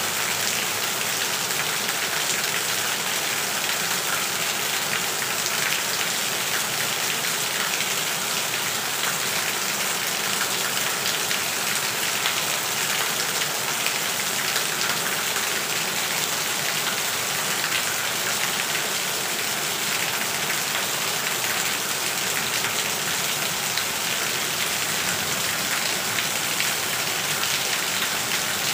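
Heavy rain pouring and splashing onto wet ground: a steady, dense hiss with individual drops pattering through it.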